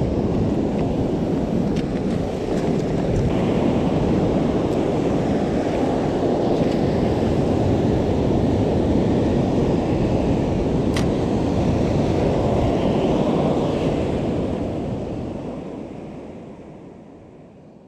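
Sea surf washing over shoreline rocks, with wind buffeting the microphone: a steady rush that fades away over the last few seconds.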